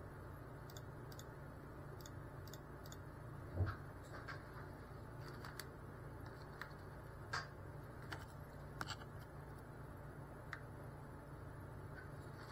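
Faint steady hum and hiss, with scattered light clicks and ticks and one soft thump about three and a half seconds in.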